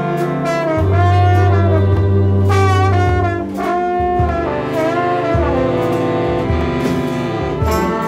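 Large jazz ensemble playing. A trombone worked with a plunger mute plays a wavering, bending line over other horns and held low notes.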